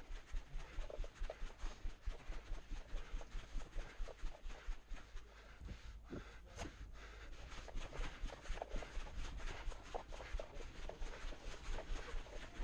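Footsteps of a person walking at a steady pace, about two to three steps a second, with rustling of clothing and gear; the steps ease off for a couple of seconds midway, then resume.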